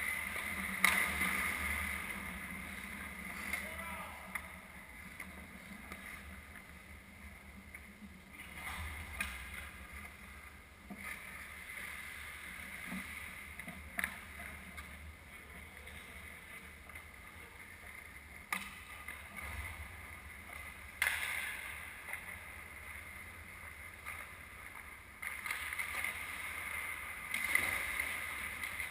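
Ice hockey game on a rink: a steady hiss of skates on the ice, several sharp clacks of sticks and puck, and players' voices.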